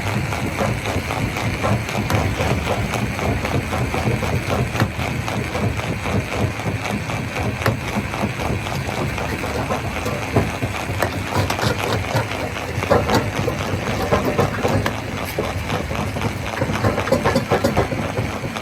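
Rock crusher running: a steady low mechanical rumble with stones knocking and clattering irregularly as they are broken.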